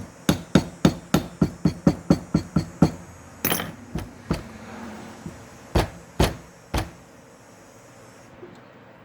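Hammer blows during brake work: a quick run of about a dozen sharp strikes, roughly three a second, then a short scraping burst and three more spaced strikes.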